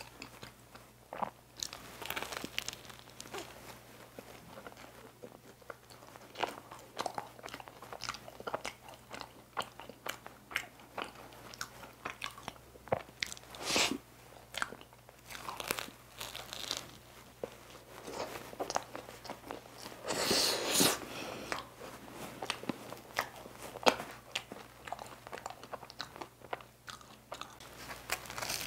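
Close-up eating sounds of a cream-filled, flaky pastry: crisp bites and chewing, a run of short irregular crunches with some louder than others.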